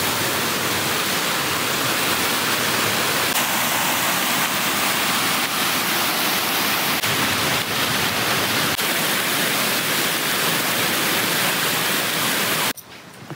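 Water pouring down a small concrete dam spillway and falling onto rocks: a loud, steady rush that cuts off suddenly near the end.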